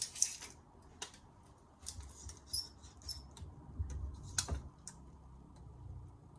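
Scattered light clicks, taps and short scrapes of hands handling a whetstone and measuring it on a work surface. The sharpest clicks come right at the start and about four and a half seconds in.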